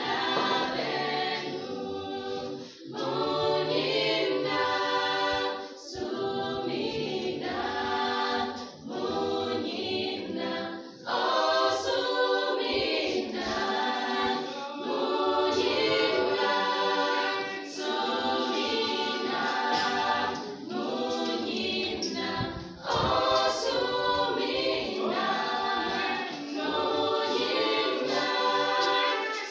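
Small mixed youth choir singing a gospel song unaccompanied in harmony, in long phrases broken by short pauses.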